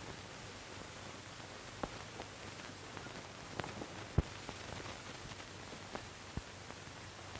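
Steady hiss with a few irregular clicks and pops, the surface noise of an old film's soundtrack; no music or dialogue.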